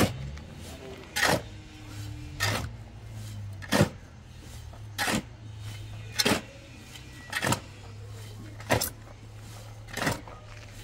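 A steel shovel scraping into and turning a pile of dry cement mix on hard ground, one stroke about every second and a quarter, nine times in a row, over a steady low hum.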